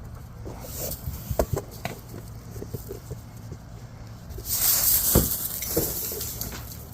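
Small rocks clicking and knocking together, then a longer scraping rush of gravel being kicked and scattered from about four and a half seconds in.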